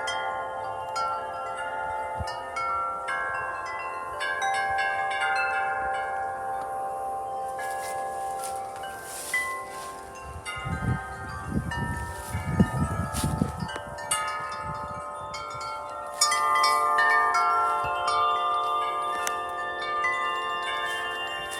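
Metal wind chimes ringing in gusty wind, many tones sounding together and ringing on, struck harder and fuller from about sixteen seconds in. A low rumble of wind on the microphone runs from about eleven to fourteen seconds in.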